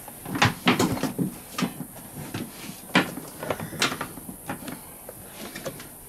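Parkside PNTC 1500 wet and dry vacuum being opened: its wire lid clamps unlatched and the motor head and lid handled on the stainless steel drum, giving a series of irregular sharp clicks and clunks, the loudest about three and four seconds in.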